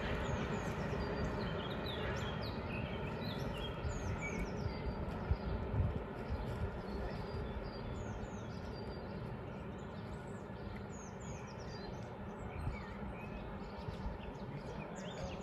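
Low rumble of a Berlin S-Bahn train slowly fading away, with small birds chirping many times over it.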